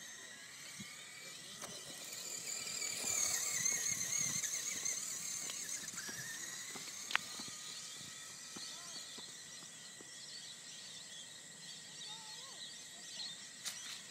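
Traxxas Bandit electric RC car's motor and drivetrain whining at high speed, the pitch wavering up and down as it accelerates and turns. It grows louder to a peak about four seconds in, then fades as the car runs farther off. There is one sharp click about seven seconds in.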